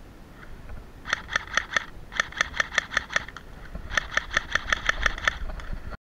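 Electric airsoft pistol, a Cyma CM030 Glock 18 replica, firing three strings of rapid shots at about six a second, the last string the longest. The sound cuts off abruptly just before the end.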